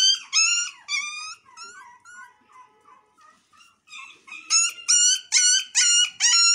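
Puppy yelping in a rapid string of high-pitched cries, about three a second. The cries fade to soft whimpers about a second and a half in, then come back loud at about four seconds.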